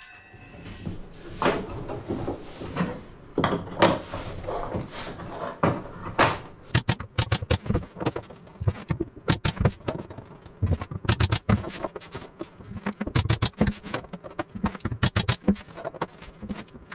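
Pine tongue-and-groove ceiling plank being handled and knocked into place against the hull frames: a series of wooden knocks and taps, sparse at first and coming thick and fast from about six seconds in.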